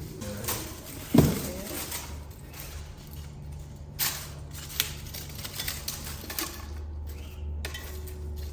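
A few scattered knocks and clicks, the loudest about a second in and a small cluster near the end, over a steady low hum.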